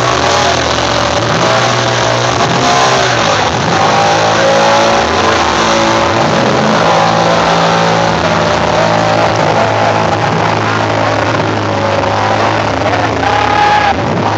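A car doing a burnout: its engine is held at high revs, rising and dropping in pitch a few times, over the steady hiss of its spinning, smoking rear tyres.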